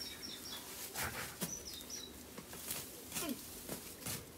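A small bird chirping in short runs of quick stepped notes, near the start and again about a second and a half in, over scattered knocks and scrapes of a spade digging into soil and roots.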